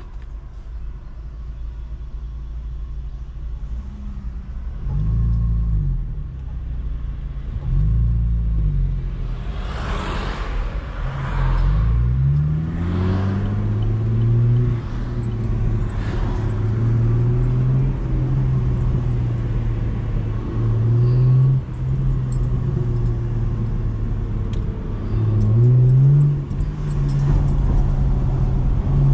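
Chevrolet Camaro engine idling, then two short throttle blips a few seconds in. After that it pulls away with rising revs and runs steadily at low revs, with small rises and dips in pitch as the car drives on.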